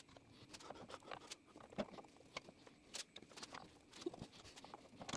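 Faint, scattered light clicks and taps of metal gearbox parts being handled as a gear on its shaft is fitted by hand into the cast gearbox housing of a bandsaw.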